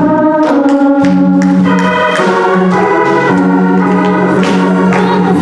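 Hammond organ playing sustained chords, the chord changing every second or so.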